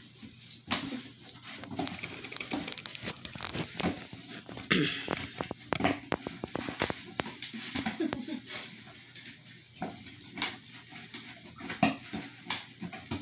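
A dog chewing and mouthing a cardboard box with its head pushed into it: irregular crunches, scrapes and knocks of cardboard.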